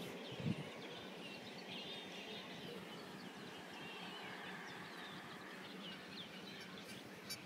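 Many small birds chirping and singing faintly over a steady background hiss, with a short low thump about half a second in.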